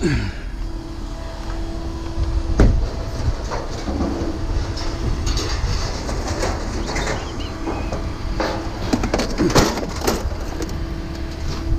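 Scrap metal being handled: scattered sharp metallic clanks and rattles, the loudest about two and a half seconds in and a cluster near the end, over a steady machine hum.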